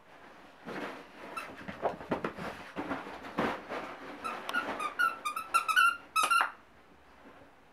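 A yellow Labrador chewing and mouthing a plush squeaky toy: rustling and chewing, then a rapid run of about ten short squeaks from the toy over the last two seconds or so before it stops.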